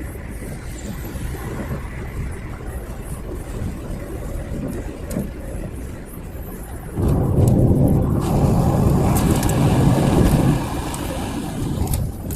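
Car driving along: a steady low road and engine rumble that swells louder about seven seconds in for a few seconds, then drops back.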